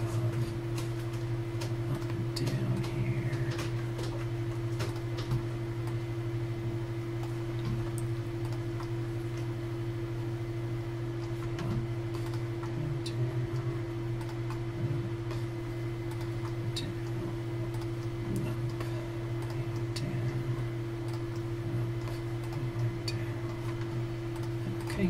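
Steady low hum with scattered clicks of a computer mouse and keyboard being worked.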